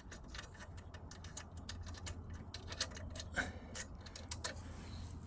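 Light, irregular metallic ticks and clicks, several a second, from a wrench working the torque arrestor's small bolts and nuts, over a low steady hum.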